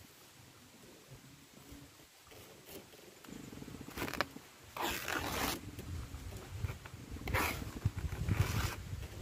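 Kithul palm flower bud's sheath being handled and pulled by hand: several short scraping, tearing rustles from about four seconds in, over a low rumble of handling on the microphone.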